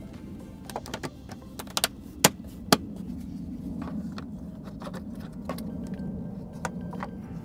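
Handling noises inside a car: a string of sharp clicks and taps, the loudest two about half a second apart a little past two seconds in, over a steady low hum.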